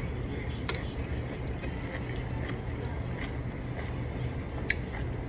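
Steady low room noise with two sharp clinks of an eating utensil against a bowl, one just under a second in and a louder, briefly ringing one near the end.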